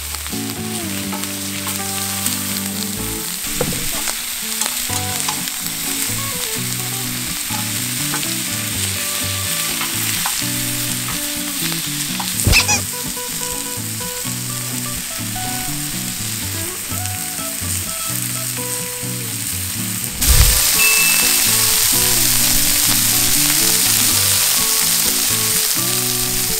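Bone-in pork belly and pork back ribs sizzling steadily as they sear over high heat on a large round iron griddle. There is a single sharp click about twelve seconds in, and the sizzle gets louder about twenty seconds in.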